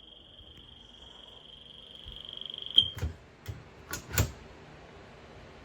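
A smoke detector over ten years old, malfunctioning, sounding one steady high-pitched tone that cuts off suddenly with a sharp click about three seconds in. A few more sharp clicks and knocks follow over the next second and a half.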